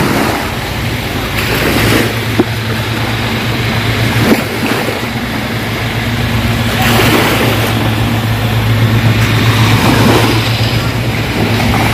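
Steady low drone of a motorboat engine over the wash of small waves and wind at the shore.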